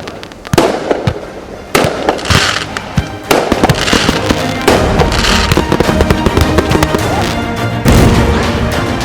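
Homemade firework pot going off: separate bangs about half a second in, near 2 s and near 3 s, then a rapid string of shots and crackles with a heavier blast near the end. Music plays underneath.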